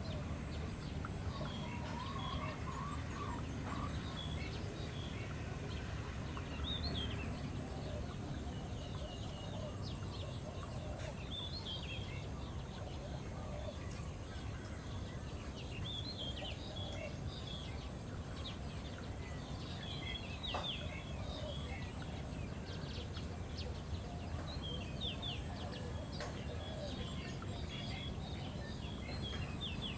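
Chickens clucking, with many short high chirps scattered throughout over a steady background noise.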